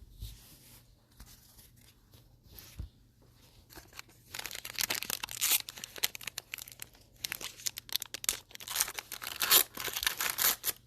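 A card pack's wrapper being torn open and crinkled. It starts about four seconds in and goes on as a dense, irregular crackle until near the end.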